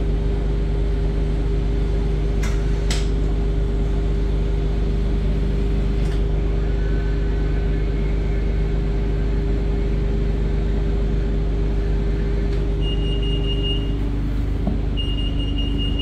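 Steady low idling hum inside a 2016 Gillig BRT transit bus, with a few sharp clicks from the Quantum wheelchair restraint as it is worked and two short high beeps near the end.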